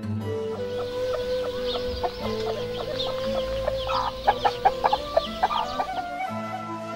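A hen clucking in short, sharp calls, with chicks peeping in high falling chirps, over background music with steady held notes. The clucks are loudest about four to five seconds in.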